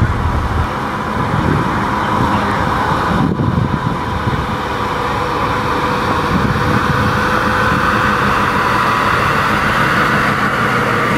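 A classic Pontiac GTO convertible driving slowly past, its engine running steadily, with a steady hiss of outdoor noise around it.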